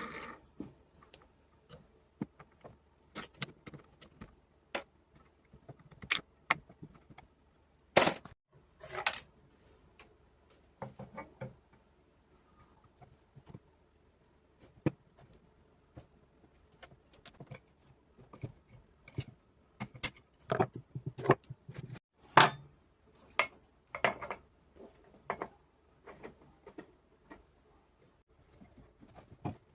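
Irregular clicks, clinks and knocks of small metal parts being handled, with a few sharper, louder knocks spread throughout.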